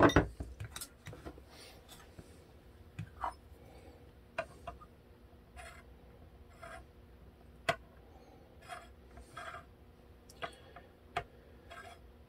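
Scattered light clicks and short scrapes of a small metal tool worked along an electric guitar's frets, as high frets are checked and dressed down. The clicks are irregular, roughly one a second, with a sharper one near the middle.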